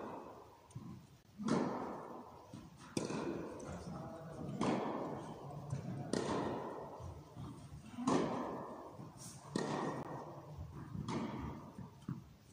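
Tennis balls struck by rackets at a steady rally pace, about seven hits roughly a second and a half apart. Each sharp pop rings out in the echo of a large indoor hall.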